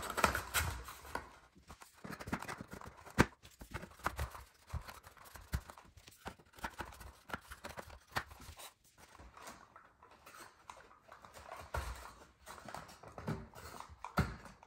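Thin laser-cut wooden slats clicking and knocking against each other as they are slotted together and wiggled into place: irregular light taps, with one sharper knock about three seconds in.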